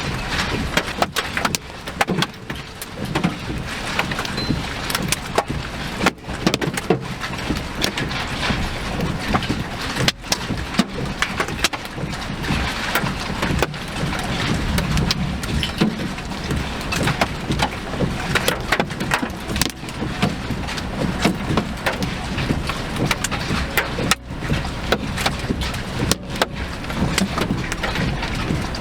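Wind and rumble of a vehicle out in a storm, with many sharp knocks and clatters all through.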